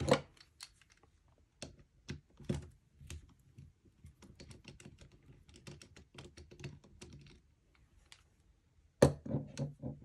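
A small screwdriver ticking and clicking against the tiny retaining screw of a laptop's M.2 SSD as the screw is backed out: a run of light, irregular clicks and taps. Near the end comes a louder clatter of hands handling the drive and the laptop's chassis.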